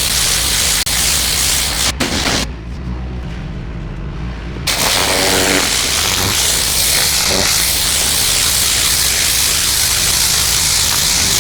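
Pressure washer jet spraying on concrete steps: a loud, steady hiss of water over the low hum of the machine. A few seconds in, the spray stops for about two seconds while the machine keeps running, then the jet starts again.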